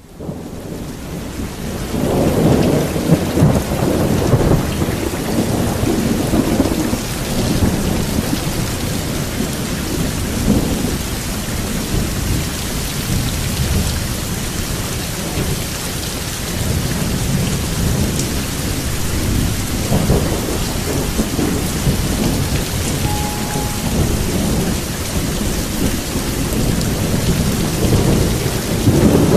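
Steady heavy rain with thunder rolling in repeated low rumbles, fading up at the start and swelling again near the end.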